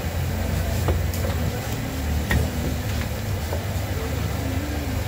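Steady low rumble under an even hiss from a wok of oil deep-frying battered cempedak over its burner, with a few light clicks of utensils.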